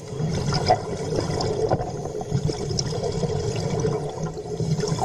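Aquarium water churning and bubbling, a steady rushing noise with small scattered clicks.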